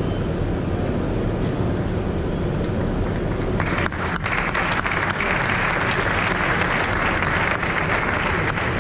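A steady low rumble, then audience applause breaks out about four seconds in and keeps going.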